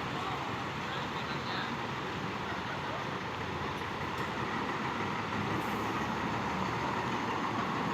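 Steady road traffic noise: vehicles running past on the road.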